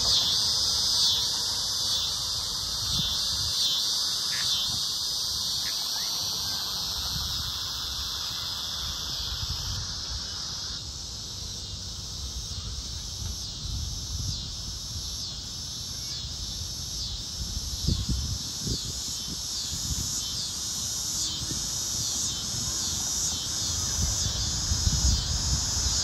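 A dense chorus of cicadas buzzing high and shrill in steady, repeating pulses, with a low rumble underneath.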